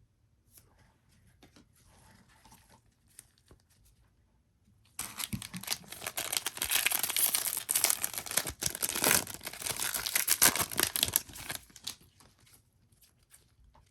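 Foil wrapper of a trading-card pack being torn open and crinkled: faint rustling at first, then about seven seconds of loud crackling and tearing that dies away near the end.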